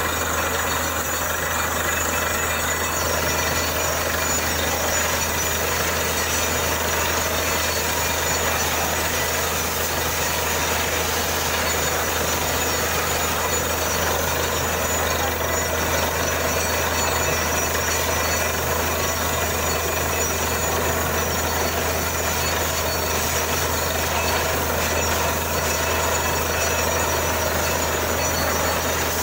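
Borewell drilling rig running steadily, a constant low engine hum under a dense, even mechanical noise with no pauses.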